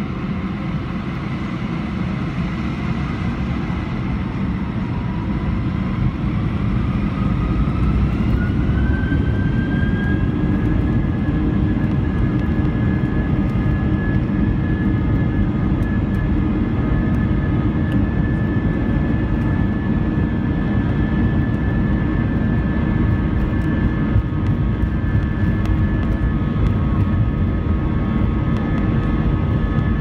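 Airbus A320's IAE V2500 jet engines heard from inside the cabin over the wing as the airliner taxis. A low rumble under a whine that rises in pitch over several seconds and grows louder as thrust is added, then holds steady.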